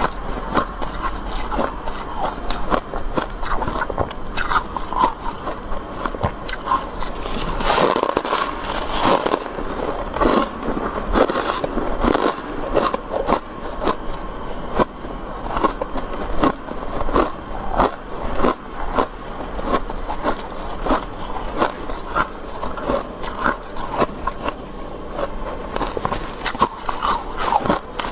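Soft freezer frost being bitten, crunched and chewed close to the microphone, a dense run of irregular crisp crunches, mixed with scraping as frost is pulled from the frosted-up freezer.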